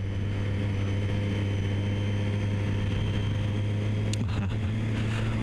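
Triumph Street Triple's inline three-cylinder engine running at a steady cruise, one unchanging note under a haze of wind and road noise.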